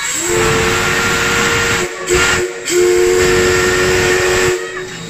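Steam whistle of the DT668 steam locomotive, a D51-class 2-8-2, blowing a two-note chord in three blasts, long, short and long, as the engine starts off. Steam hisses steadily under the whistle.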